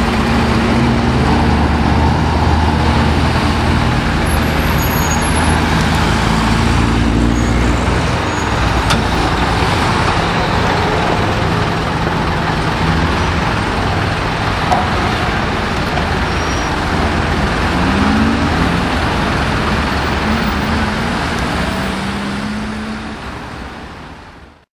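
Heavy truck engine running steadily as it tows a loaded low-loader trailer past, over general street traffic noise. The engine hum is strongest at first and eases off as the truck moves away; brief rising and falling engine tones from passing traffic come near the end, and the sound fades out.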